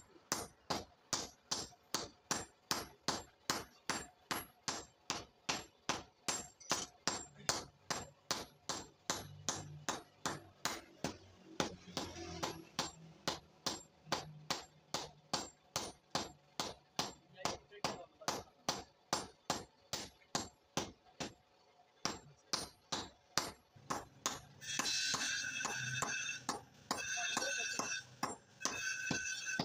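Sledgehammer blows on red-hot steel on an anvil, hand-forging a chisel, in a steady rhythm of about two strikes a second. The blows stop about two-thirds of the way through. Near the end a higher-pitched ringing comes in three stretches.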